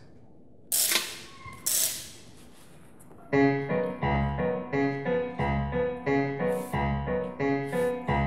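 Two short rasping noises about a second apart, then from about three seconds in a piano plays a tune of evenly paced, repeating notes, about three a second, as the mechanical nightingale's song.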